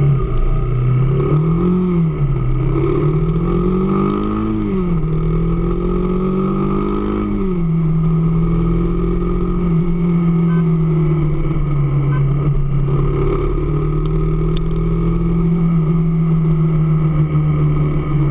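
AKT DS200 motorcycle's single-cylinder engine revved up and back down three times over the first several seconds, the last rev held a little longer, then idling steadily. The owner is showing a noise the engine makes.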